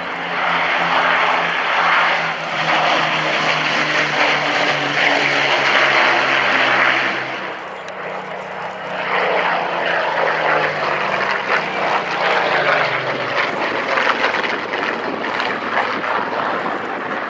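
Avro Lancaster bomber and Spitfire fighters flying past with their piston engines droning. The engine note falls as an aircraft passes, about ten seconds in.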